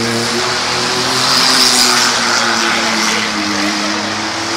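Engines of demolition derby cars running hard as one steady drone, wavering slightly in pitch, over a broad hiss.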